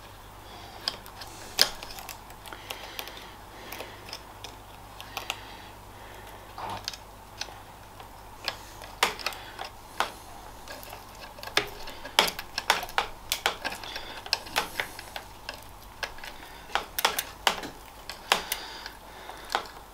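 Irregular sharp metallic clicks and clinks of a bicycle chain and hand tools being worked while trying to open a stubborn split link.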